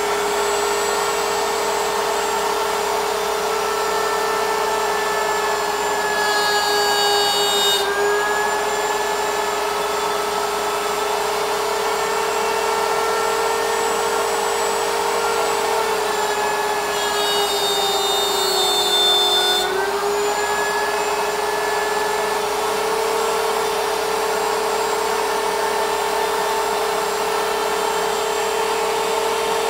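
CNC router table's router motor running steadily at high speed while its bit cuts a slot in plywood. Twice, about 7 and 18 seconds in, the whine drops in pitch and a harsher, slightly louder cutting noise comes in as the router slows under load.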